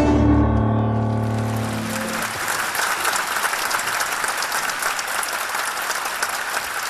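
A live tango ensemble of violin, piano and double bass ends a piece on a held final chord that fades out over about the first two seconds. An audience's applause swells up under it and carries on steadily.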